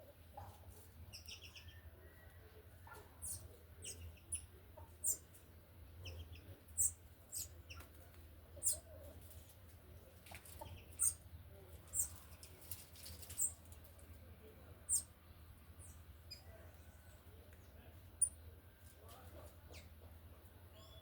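Short, high-pitched bird chirps, a dozen or so at irregular intervals, over a faint steady low hum.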